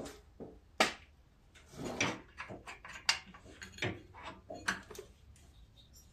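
Irregular metallic clicks, knocks and scrapes as the electric clutch pulley on a riding mower's engine shaft is handled and worked loose by hand after its bolt is removed.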